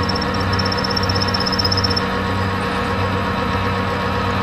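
Metal lathe running steadily, its tool cutting 316 stainless steel bar stock, with a constant motor hum and a thin high whine during the first two seconds.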